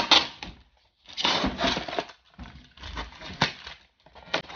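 Packaging rustling and being handled as a box of parts is opened, in three rough bursts, with a couple of sharp clicks near the end.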